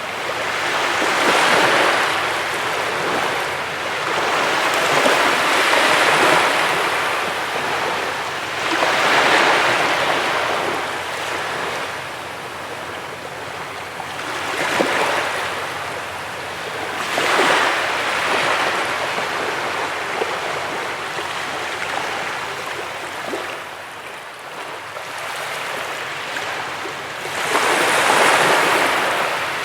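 Sea waves breaking and washing up a beach, the surf swelling and ebbing in about five surges, the loudest near the end.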